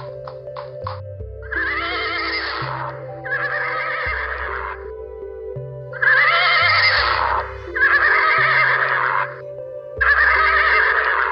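Horse whinnying about five times, each call lasting about a second with a wavering pitch, over background music with a steady low bass line. A few short clicks come in the first second.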